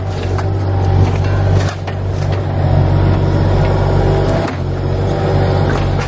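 An engine running steadily with a low, even hum, and a few faint knocks over it.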